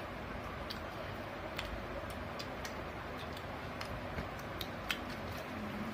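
Eating noises: scattered small clicks and ticks at irregular intervals, over a steady background hiss.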